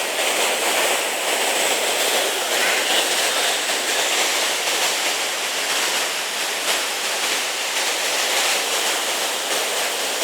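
Whitewater rapids on the Chattahoochee River: a steady rush of water pouring over rocks.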